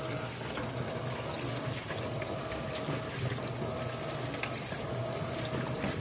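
Top-load washing machine filling: water running steadily into a drum packed with clothes, over a low, constant hum.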